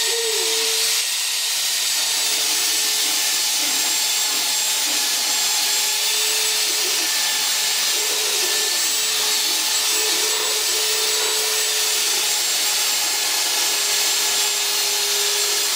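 Handheld electric belt sander running steadily with a constant motor whine under the hiss of its belt sanding the rusty top of an old turntable housing.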